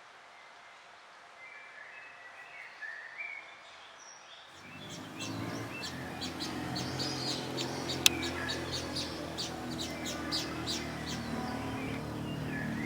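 Small songbirds singing: a few faint short phrases at first, then, after an abrupt change about four and a half seconds in, a louder, busy chorus of many quick chirps over a low steady hum. A single sharp click comes near the middle.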